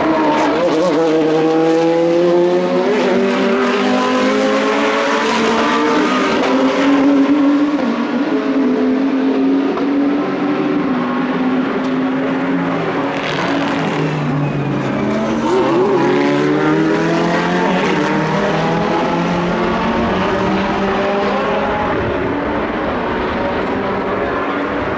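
High-performance car engines running hard on a race track, their pitch rising and falling as they accelerate and change gear, with more than one car heard at once.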